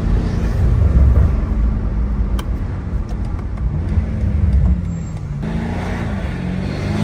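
BMW M8 Competition's twin-turbo 4.4-litre V8 running while driving, its revs rising and falling a few times, with a brief click about two and a half seconds in.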